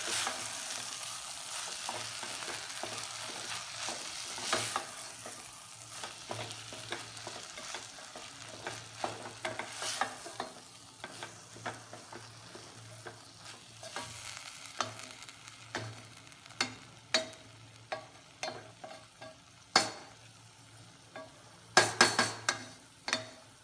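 Spatula stirring and scraping boiled pearl millet in a stainless steel pot, over a faint sizzle of oil that fades after the first few seconds. A few sharp knocks of the spatula on the pot near the end.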